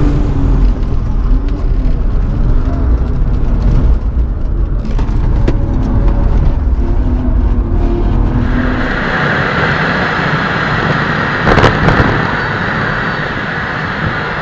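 BMW E36's engine heard from inside the cabin at speed on a race track, its pitch rising and falling with throttle and gear changes. About nine seconds in, the engine sound gives way to a steady rush of wind and tyre noise, with a single loud thump a few seconds later.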